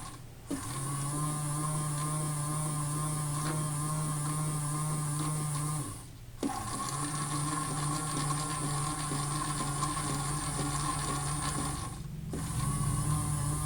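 AEG Electrolux Lavamat toy washing machine running its wash cycle: the small electric motor turning the drum with a steady hum, stopping briefly and starting again about every six seconds.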